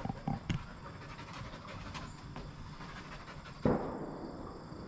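Aussiedoodle puppy panting. A few short falling sounds come near the start, and a louder one about three and a half seconds in.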